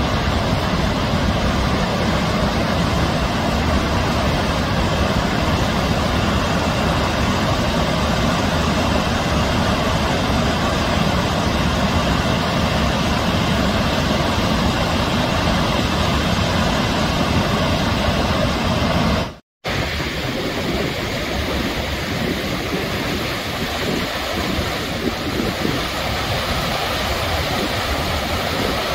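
Sandstone Falls, a wide, low waterfall and rapids on the New River, rushing steadily as white water pours over the rock ledges. The sound cuts out for a moment about two-thirds of the way in, then carries on slightly quieter.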